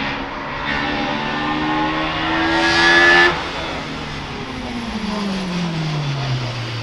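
Hill-climb race car accelerating hard, its engine pitch climbing steadily to a loud peak about three seconds in. The revs then cut off sharply, and the engine note falls away as the car slows.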